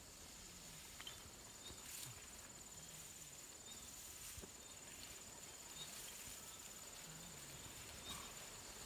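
Near silence: faint outdoor ambience with a thin, steady high-pitched tone and a few soft ticks.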